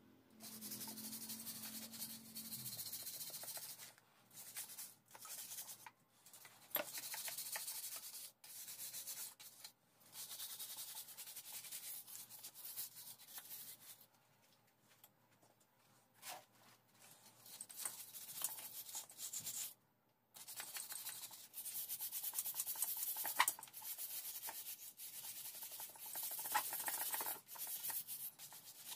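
Hand wire brush scrubbing grime and old paint off a Cub Cadet 102 engine's metal. It goes in runs of quick back-and-forth strokes with short pauses between them.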